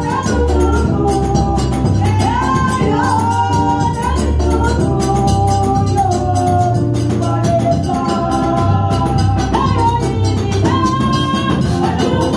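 Women singing a gospel praise song into microphones, over amplified music with a low bass line and a steady, busy percussion beat.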